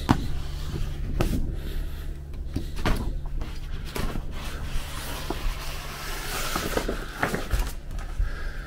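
Utility knife slicing through boat shrink-wrap plastic: irregular snaps and knocks from the stiff film, with a stretch of crinkling and rustling about two-thirds of the way in as the sheet falls open, over a steady low hum.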